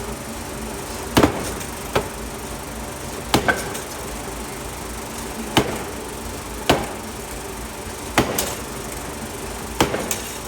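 Hammer blows on a steel forging: about eight sharp metallic impacts at irregular intervals of one to two seconds, a couple in quick pairs, over a steady machine hum.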